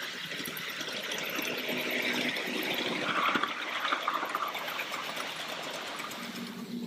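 Ride-on miniature railway train, a diesel-outline locomotive hauling a long rake of wagons, rolling past on steel rails: a rushing rumble of wheels that swells to its loudest about three seconds in, then fades as the wagons go by.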